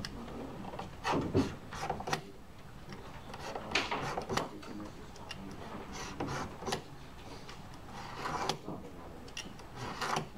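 Sheet of acrylic being scored by hand along a metal straightedge, heard as repeated short scraping strokes every second or two.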